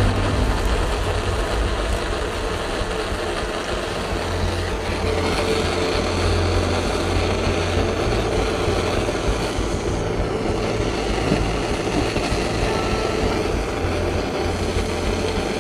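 Handheld gas torch burning with a steady rushing noise as its flame heats a shotgun's steel action to melt solder for a soft-braze repair.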